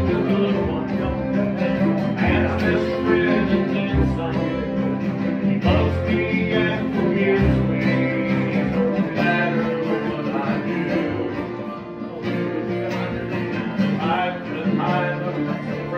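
Bluegrass jam: an acoustic string band playing a song in C.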